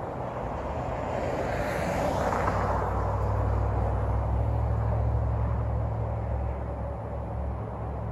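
Street traffic: a car drives past close by, swelling and fading within the first three seconds, followed by a steady low engine rumble.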